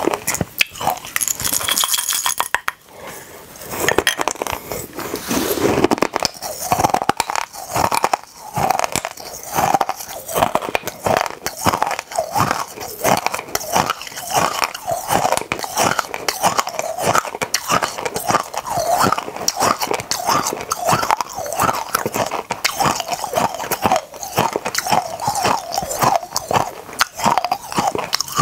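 Close-miked crunching and chewing of hard mini candies: a dense, irregular run of crisp cracks.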